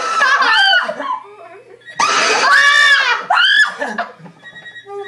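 Two long, loud, high-pitched screams: the first dies away about a second in, and the second runs from about two seconds to nearly four. Near the end a phone ringtone sounds faintly.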